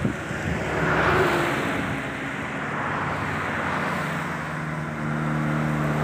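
A motor vehicle going by in an outdoor field recording. A rushing noise swells about a second in, and a steady engine hum comes in near the end.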